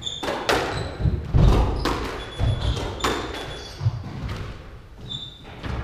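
Squash rally: the ball hitting rackets and the court walls in about seven sharp, echoing hits, mixed with short high squeaks of shoes on the wooden court floor.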